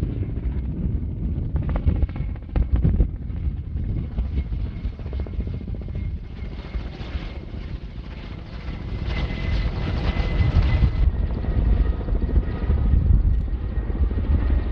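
Firefighting helicopter flying, its rotor noise with a steady high whine, growing louder about two-thirds of the way through.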